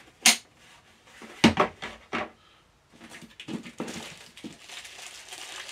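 Hard plastic toy parts being handled: a sharp click just after the start and a cluster of knocks about a second and a half in as the pieces are fitted together. From about three seconds on, a steady rustle of packaging as a hand rummages in a cardboard box.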